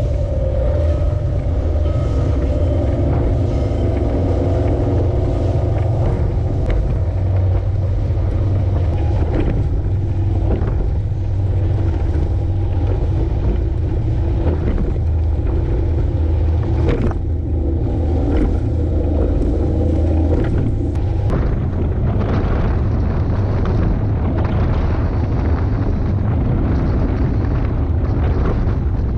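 Small boat's engine running at speed, a steady low drone with wind buffeting and the hull slapping through chop. About two-thirds of the way through the drone eases.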